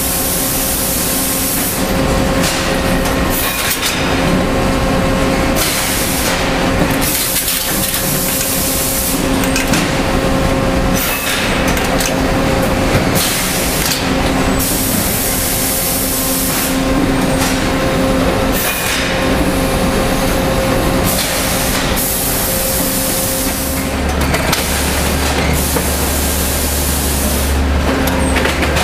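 Industrial machine noise from an ingot strapping line: a steady mechanical hum under broad noise, with repeated bursts of hiss a second or two long. A deep low drone joins in near the end.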